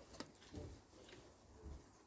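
Near silence: room tone with one faint click just after the start and a couple of soft low bumps.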